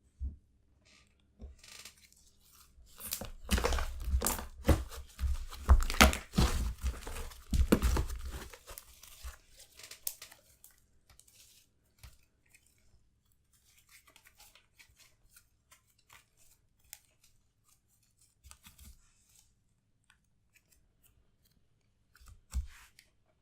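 Slime being stretched and squeezed by hand, giving a few seconds of dense crackling and popping, then only faint sticky clicks for the rest of the time.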